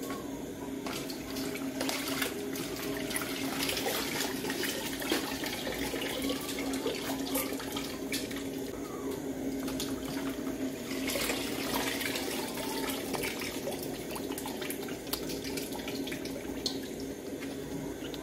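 Water poured from a metal bowl into a large aluminium pot of rice for jollof, with clinks and knocks of the metal bowl, pot and ladle over a steady low hum.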